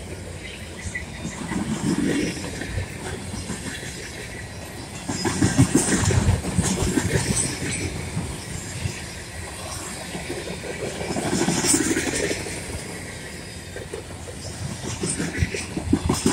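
Freight train of loaded flatcars rolling past close by: steel wheels clattering over the rail joints in a continuous rumble. The rumble swells louder every few seconds as each set of wheels goes by.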